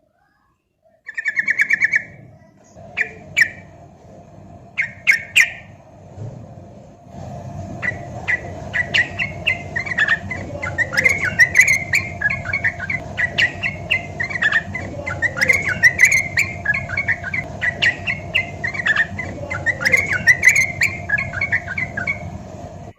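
Sooty-headed bulbul (trucukan) song: a short, rapid trill about a second in, then scattered chirps, and from about seven seconds a continuous run of quick chattering notes over a steady low background hum.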